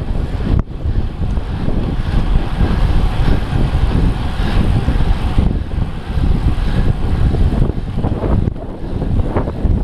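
Wind rushing and buffeting over the microphone of a camera on a moving bicycle, a steady low rumble with no let-up, briefly dipping about half a second in.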